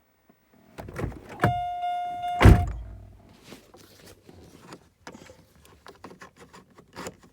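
A steady electronic beep lasting about a second, cut off by a loud heavy thunk of a car door shutting; small clicks and rustling follow.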